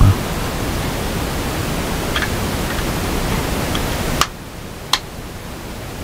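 A steady hiss that drops away sharply about four seconds in, with a few small plastic clicks from a wireless PIR motion sensor's housing being handled and closed. The sharpest click comes near the end.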